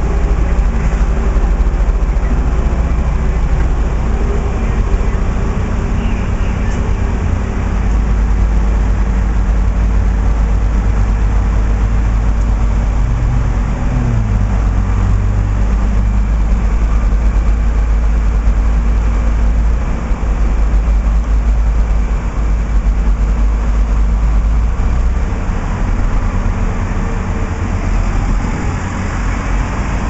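Street traffic: motor vehicle engines idling and running past, a steady low rumble, with one engine's pitch shifting briefly about halfway through.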